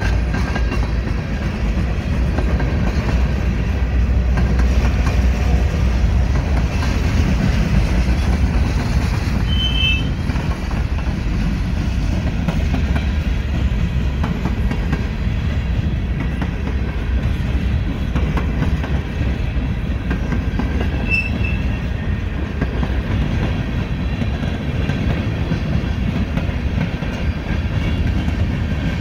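Freight train of coal hopper cars and tank cars rolling past, with a steady rumble and clatter of wheels on the rails. Two brief high wheel squeals come about ten seconds apart.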